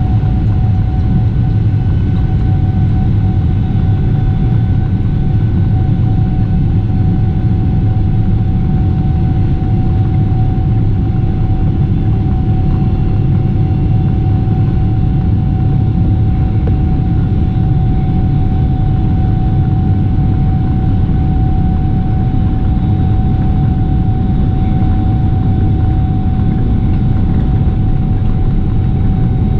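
Boeing 777-300ER's GE90-115B turbofan engines at idle thrust while the airliner taxis, heard from inside the cabin: a steady rumble with a constant whine that does not change.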